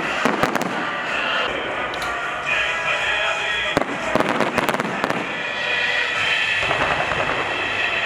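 Festive fireworks salute: clusters of sharp bangs near the start and again about four to five seconds in, with steady crackling between.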